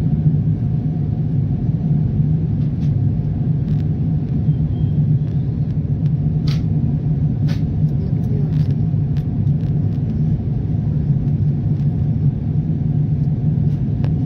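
Steady low rumble of an airliner cabin in flight: jet engines and rushing air heard from a window seat. A few brief clicks sit on top of it in the first half.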